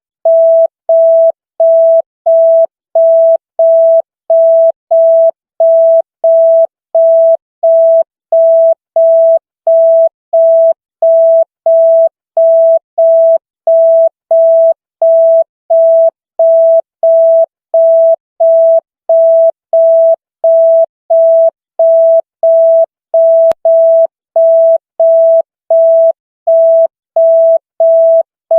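Electronic telephone-style signal tone: a single pitch beeping on and off evenly, about one and a half beeps a second, like a busy tone.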